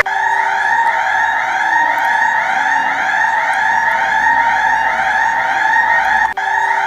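Emergency alert alarm: a loud steady high tone with a siren-like rising-and-falling sweep repeating about twice a second over it. It breaks off for an instant near the end and starts again.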